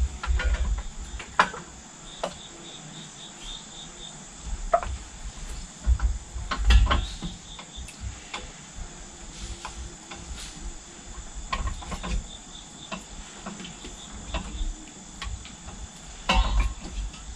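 Glass canning jars lifted out of an electric pressure canner with metal jar-lifter tongs and set down on a towel-covered glass table: scattered clinks of metal tongs on glass and lids, and dull thumps as the jars land, the loudest about seven seconds in and near the end. Crickets chirp faintly in the background.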